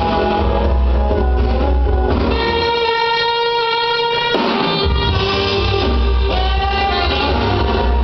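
Recorded dance music with held notes over a low beat. The low end drops out for about two seconds in the middle and then comes back.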